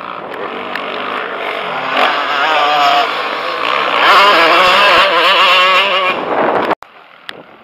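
Motocross dirt bike engine revving, its pitch rising and falling as the bike works over the rough track. It grows louder to a peak a few seconds in, then cuts off suddenly near the end.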